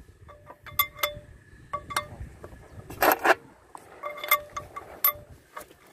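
Steel planetary gears and splined shafts of a Kato HD512E excavator's final drive clinking against each other and the gear carrier as they are fitted by hand. There is a series of sharp metallic clinks, some in quick pairs, each ringing briefly, and a louder knock about three seconds in.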